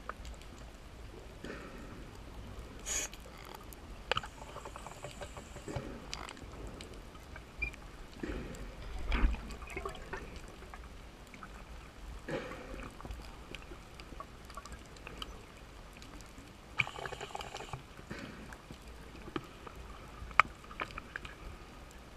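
Underwater bubbling and gurgling from a scuba diver's breathing, with scattered clicks and short bursts at irregular intervals over a low steady rumble.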